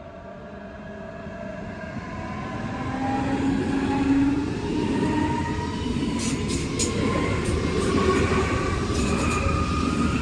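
Electric train drawing near and passing, growing louder over the first few seconds into a steady rumble. A whine of several tones rises in pitch throughout. A run of sharp clicks from the wheels comes in the second half.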